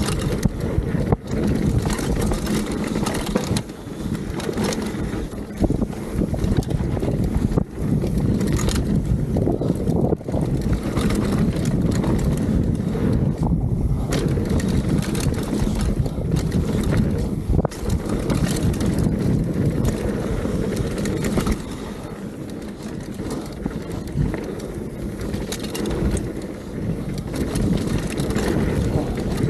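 Mountain bike riding fast down a dirt forest trail: wind rushing over the camera's microphone and tyres rumbling on the ground, with occasional sharp knocks and rattles from the bike over bumps.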